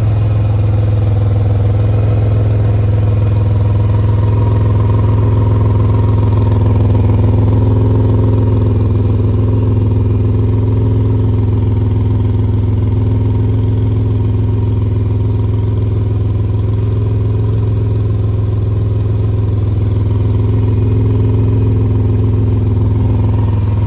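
A 2005 Pontiac Grand Prix GTP's supercharged 3.8-litre V6 idling steadily, with a deep even hum. The car has an exhaust leak that needs fixing.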